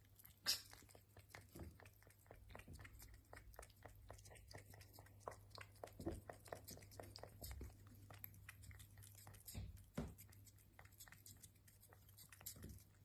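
A cat licking paste from a squeeze-tube treat: a steady run of faint, quick, irregular wet lapping clicks, with a few louder clicks.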